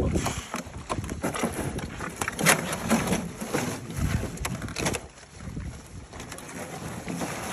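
Irregular thumps, knocks and slaps as large sturgeon are dropped and shifted into a plastic-lined cart, the sharpest hits about 2.5 s in and again around 4 to 5 s in, quieter toward the end.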